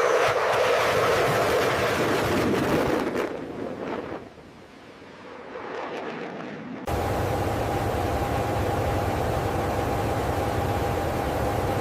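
A loud rushing noise that fades away over the first few seconds, then, after a sudden cut, a steady machinery hum with a low drone and a constant whining tone.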